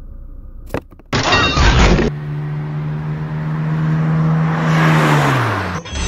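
Animation sound effects: a sharp hit, a loud burst of noise, then a vehicle engine running steadily for a few seconds, its pitch falling near the end, and another short burst of noise.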